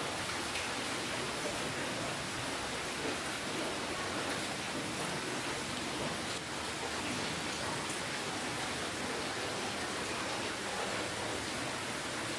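Steady rainfall, an even hiss of rain falling on a surface with fine drops spattering throughout.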